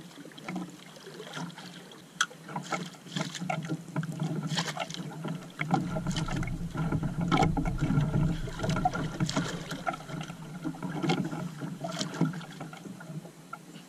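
Water lapping and splashing irregularly against the hull of a small wooden outrigger boat. A deeper rumble rises in the middle for a few seconds.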